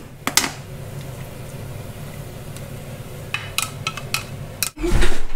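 Fish and peppers sizzling in a red-hot pan, a steady hiss with a few sharp clicks of a utensil against the pan, then a louder dull knock near the end.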